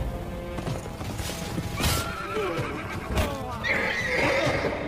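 Horses neighing several times amid hoofbeats, with two sharp impacts about two and three seconds in, over background music.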